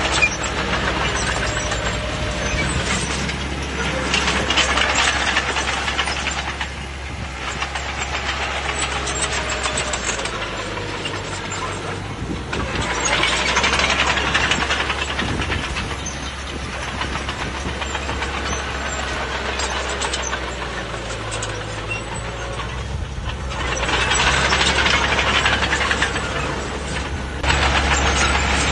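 Bulldozer's diesel engine running steadily, with three spells of a few seconds each of louder, harsher noise as the machine works.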